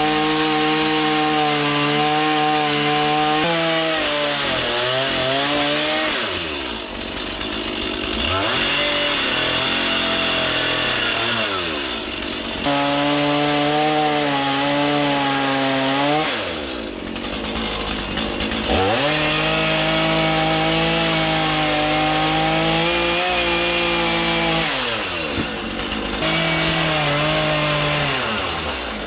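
Stihl chainsaw cutting into a log at full throttle. It drops off to a lower speed and revs back up three or four times between cuts.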